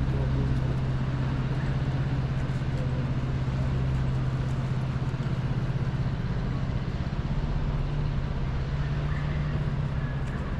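Steady low hum of a motor vehicle engine running close by, over general city street noise; its pitch steps up slightly about seven seconds in.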